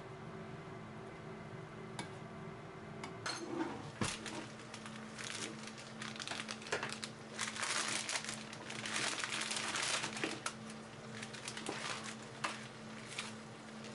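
Plastic food pouch crinkling as it is handled and opened, starting about three seconds in and busiest in the middle, over a steady low hum.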